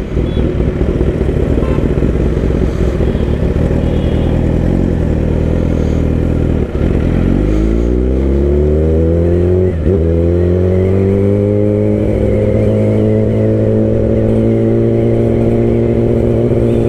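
Kawasaki ZX-10R's inline-four engine on the move: its pitch falls away at first, then climbs after a gear change about seven seconds in and again after a brief shift near ten seconds, before holding steady.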